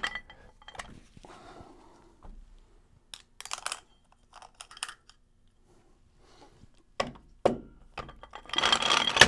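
Steel gear-train parts of a 10R140 automatic transmission clinking and knocking as a planetary ring gear and sun gear assembly is set down onto the drum stack, with scattered light knocks and a denser burst of metallic clatter and ringing near the end.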